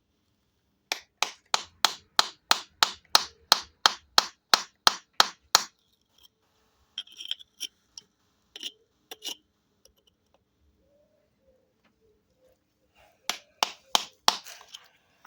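Quick, light, even taps of a tool on a geode stone, about four a second for several seconds, then a few scattered taps and another short run near the end, working a line around the stone to crack it open.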